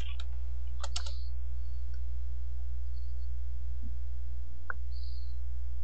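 A steady low hum with a few scattered clicks: a small cluster about a second in and one more near the end.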